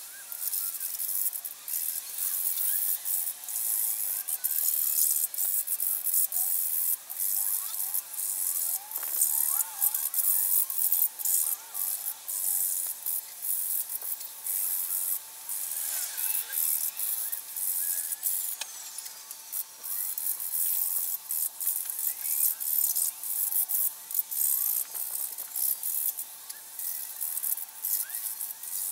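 Hand tools clicking and rattling against the metal frame of an electric motorcycle, in irregular bursts of sharp clicks.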